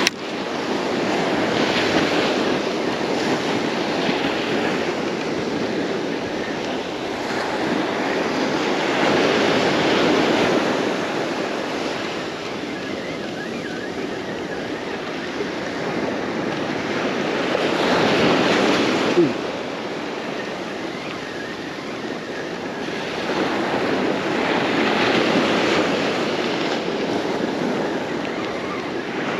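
Ocean surf breaking on a beach: a steady wash of noise that swells with each wave roughly every seven or eight seconds. There is a short sharp click about two-thirds of the way through.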